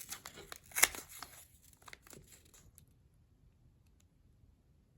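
Crinkling of a Pokémon card pack's wrapper being handled: a scatter of short crackles, the sharpest a little under a second in, fading out after about two and a half seconds.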